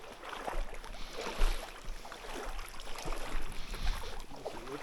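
Flowing river water with small splashes, and gusts of wind rumbling on the microphone.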